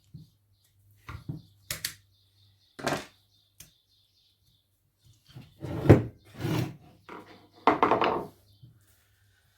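Irregular knocks and thuds from an old washing machine electric motor being knocked and handled as it is taken apart. A few come about a second in, and the loudest two come around six and eight seconds in.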